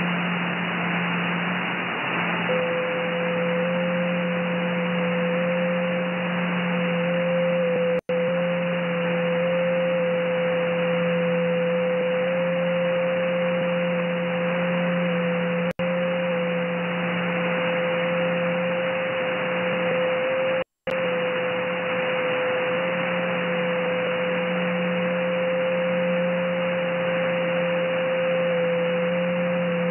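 Shortwave receiver audio in upper sideband on the 30-metre band: a steady hiss of band noise with a low hum under it. About two seconds in a steady mid-pitched tone starts and holds, a JT9 digital-mode signal beginning its transmission at the top of the minute. The audio drops out briefly three times.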